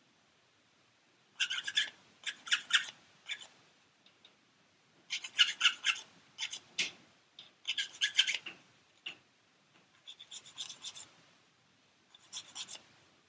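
Sanding stick rubbed in quick short strokes over a small plastic model-kit part, in several separate bursts with short pauses between, taking moulding flash and paint off the part.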